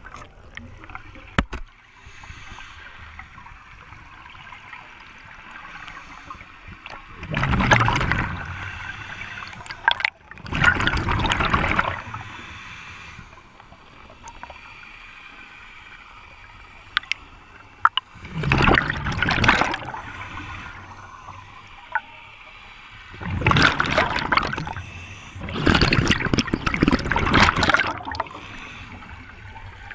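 Scuba regulator exhaust bubbles heard underwater: a diver exhaling in five rushes of bubbling, each a second or two long, a few seconds apart. A few faint sharp clicks come between them.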